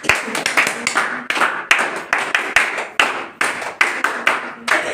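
A group of people clapping their hands in applause: many quick, uneven claps.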